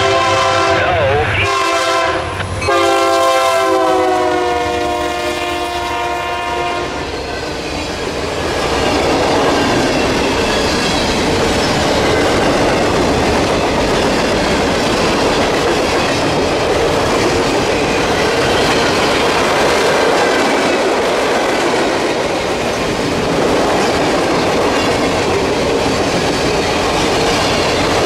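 Freight locomotive air horn chord: a short blast and then a long one that drops slightly in pitch, then the train rolling by with steady rumbling and wheels clattering over the rail joints.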